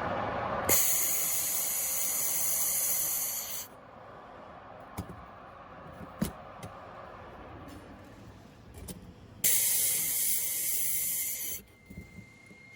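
Handheld fiber laser welding-cutting gun firing on stainless steel in two bursts of loud hissing, the first about three seconds long and the second about two seconds, near the start and near the end. Between the bursts there is a quieter steady noise with a few sharp clicks.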